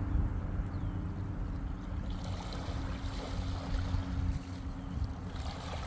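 Wind rumbling low on the microphone over small waves lapping at the shoreline, with a faint steady hum underneath.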